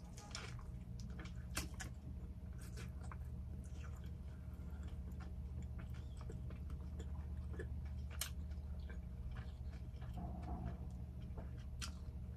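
A person biting into and chewing a cheeseburger, with many short wet mouth clicks and smacks, over a steady low hum.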